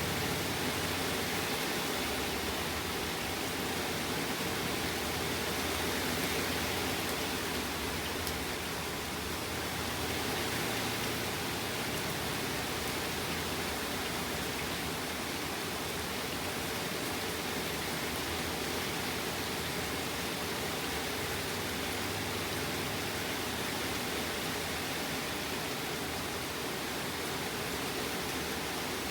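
Steady rain falling during a thunderstorm: an even, unbroken hiss.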